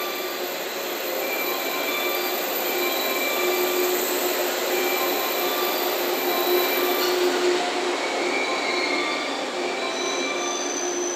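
JR West 115 series four-car electric multiple unit rolling past on a shunting move, its steel wheels squealing on the rails. Several high, steady squeal tones come and go over a continuous running noise.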